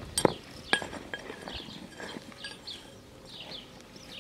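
A paving hammer knocking stone cobblestone setts into their sand bed: two sharp ringing strikes in the first second, then a few lighter stone clacks. Small birds chirp repeatedly in the background.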